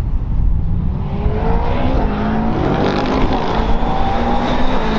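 McLaren 720S GT3 EVO race car's twin-turbo V8 accelerating down the straight toward the listener, its engine note rising steadily and getting louder as it approaches.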